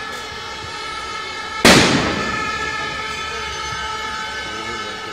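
A single loud firecracker bang about a second and a half in, dying away over half a second, over a steady din of held horn- and siren-like tones from a crowd.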